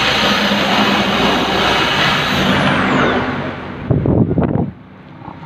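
Corded electric hand drill running under load, cutting into the old steel axle bearing cup left inside the axle housing. It is released about two and a half seconds in and winds down with a falling whine, followed by brief knocking about four seconds in.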